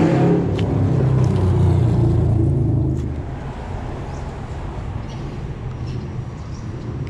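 Traffic crossing the concrete road bridge overhead: a low vehicle rumble for about the first three seconds that then dies down to a steadier, quieter traffic hum.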